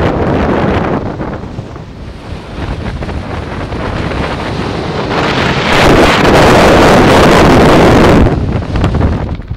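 Strong wind buffeting the camera's microphone. It eases briefly, then builds into a much louder gust about halfway through that lasts a few seconds before dropping back.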